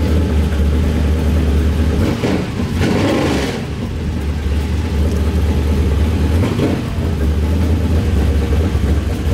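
Loud V8 engine running at idle with a heavy, steady low rumble. Its note changes briefly about two to three seconds in and again around six and a half seconds.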